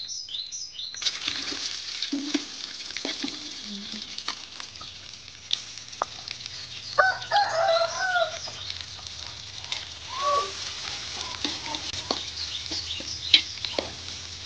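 Small dried fish and shallots sizzling in hot oil in an aluminium wok, with sharp clicks and scrapes of a knife and a metal spatula. A rooster crows once about seven seconds in, and a shorter chicken call follows near ten seconds.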